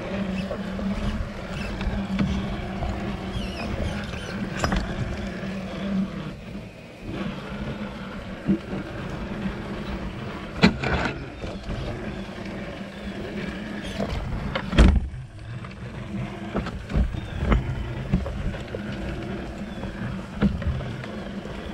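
Traxxas TRX-4 RC crawler driving, its electric motor and gears whining steadily. The whine drops out briefly a couple of times. Sharp knocks and scrapes come as the truck climbs over rocks and pushes through branches.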